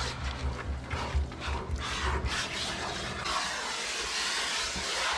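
Hose spray nozzle with a shampoo-mixing bottle spraying sudsy water into a dog's thick, wet coat: a hiss of water that turns steadier about three seconds in.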